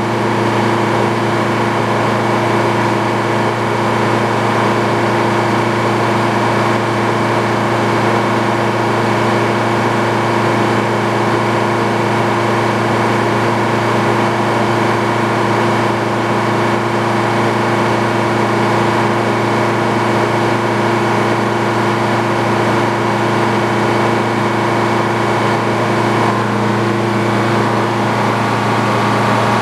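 Engine powering an antique Frick sawmill, running at a steady speed with a steady whine over it. The tone shifts slightly near the end.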